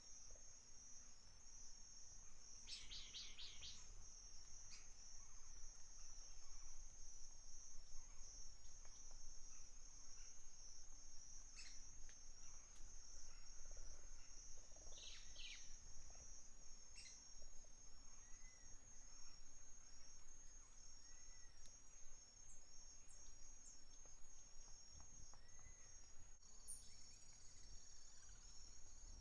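Faint outdoor ambience: a steady, high, pulsing insect buzz, with scattered short bird chirps over a low rumble of wind.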